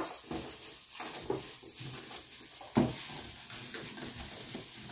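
Dried shrimp being put into a bowl of flattened rice flakes: faint rustling with a few soft knocks against the bowl, the loudest about three seconds in.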